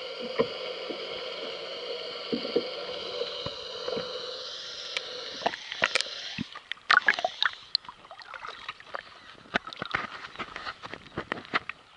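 Underwater sound through a submerged camera: a steady hum with several held tones for the first few seconds, then irregular sloshing and sharp splashy clicks as the camera moves near and through the water's surface.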